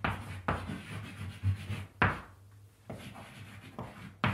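Chalk writing on a chalkboard: a series of short scraping strokes as a word is written out.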